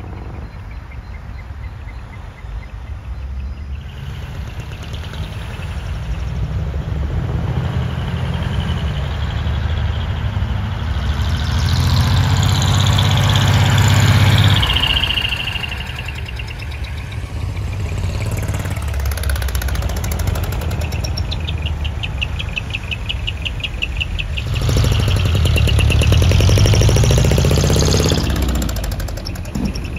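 Diesel engines of decorated trucks driving slowly past, a steady low rumble that swells as each truck comes close, loudest about halfway through and again near the end.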